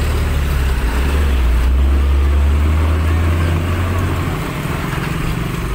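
Road traffic passing close by: motorcycles and a car going past over a steady low engine rumble that eases briefly near the end.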